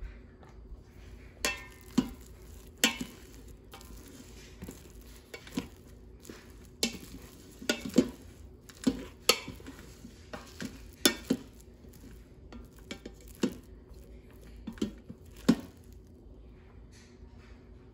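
Plastic rice paddle stirring and fluffing freshly cooked sushi rice in an Instant Pot's stainless steel inner pot, knocking and scraping against the metal in irregular clicks.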